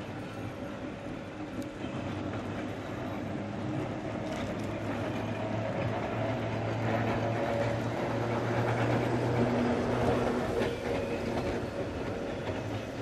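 Vintage electric tram running toward the listener on street rails: a steady hum with the rumble and clatter of its wheels on the track, growing louder through the middle and easing near the end.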